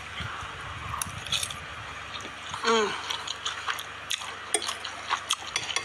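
A woman eating spaghetti from a bowl with a fork: scattered small sharp clicks and chewing noises, with one short hummed vocal sound falling in pitch about three seconds in.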